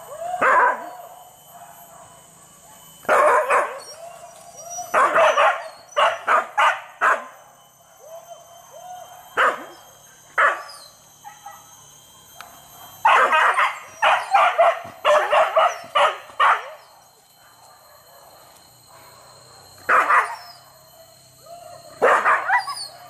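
Hunting dogs tied to a tree barking in repeated bouts, with a fast run of barks in the middle lasting about three seconds.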